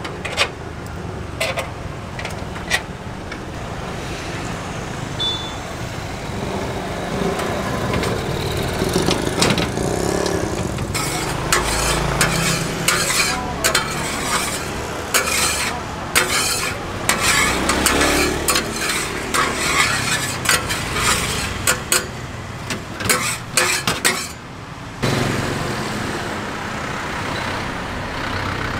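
Food being cooked in a hot metal pan: a metal spatula clatters and scrapes against the pan over sizzling. The clattering is busiest in the middle and comes with a steady background of traffic.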